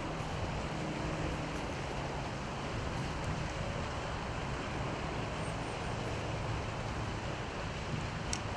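Steady rushing outdoor background noise with a faint low hum under it, and a faint click near the end.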